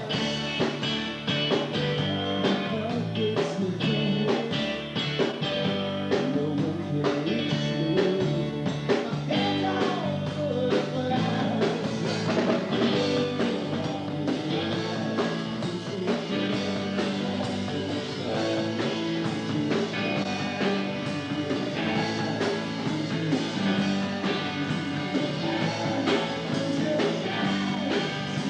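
Rock band playing a song: electric guitar and drums with a singer.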